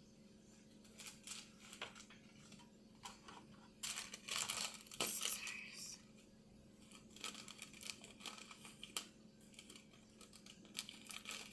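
A packet being crinkled and torn at as it is worked open, in several short scattered bursts with quiet gaps between them.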